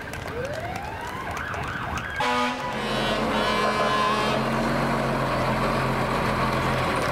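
A siren wailing, rising and falling, then about two seconds in a short horn blast, followed by the steady low running of a military six-wheel cargo truck's engine as it passes close by.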